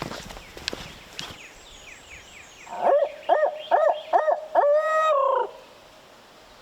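Barred owl hooting: a loud rhythmic run of four quick rising-and-falling hoots ending in one long drawn-out note that trails off, in the 'who cooks for you' pattern. A few light clicks and faint songbird chirps come before it.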